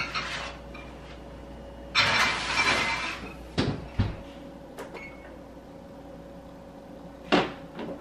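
Oven door opened and a tray of glass meal-prep dishes slid in, then the door shut with a thud about four seconds in. A short beep from the oven's control panel comes near the end.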